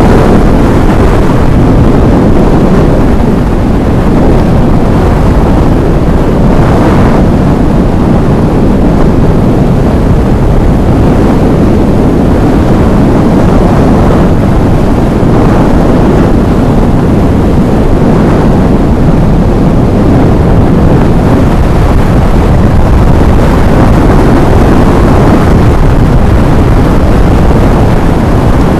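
Motorbike riding at speed, heard mostly as loud, steady wind rush buffeting the rider-mounted camera's microphone, with engine and road noise under it.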